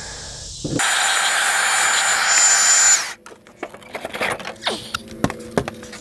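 Greenworks battery leaf blower running for about two seconds with a steady high whine over its rush of air, then cutting off suddenly. After it come a series of knocks, clicks and scrapes of hive boxes being handled.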